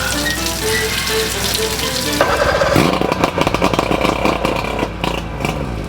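Outboard motor running roughly on flushing muffs, its pulsing note wavering and sagging, which the owner calls not running right. Radio music plays underneath, with the motor coming in about two seconds in.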